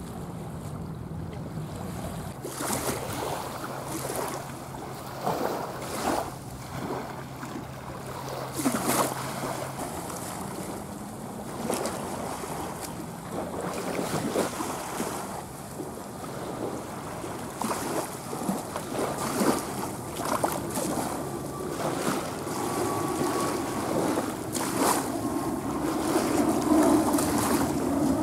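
Jet engine roar of airliners climbing out on departure: first a Boeing 747 freighter receding, then an Airbus A320neo with CFM LEAP-1A engines climbing overhead, its rumble growing louder near the end. Repeated gusts of wind buffet the microphone.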